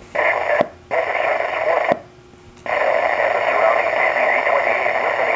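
Loud, noisy receiver audio from a GE Phoenix SX VHF mobile radio's speaker. It cuts in and out with two short silent gaps and a sharp click before each, then runs steadily from about two and a half seconds in.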